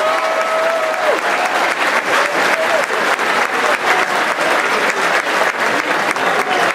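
Spectator crowd at a rugby league ground applauding and cheering a try, dense clapping throughout. One voice holds a long shout for about the first second.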